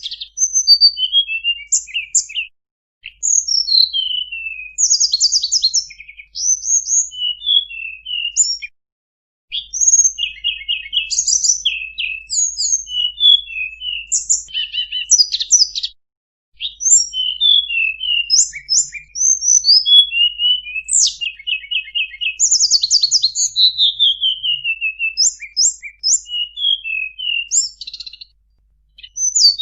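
A tledekan gunung songbird singing a long, varied song of quick whistled chirps, rapid trills and sweeping down-slurred notes, with a few short pauses between bursts. The song is packed with 'isian' phrases, the added song fills the bird has learned.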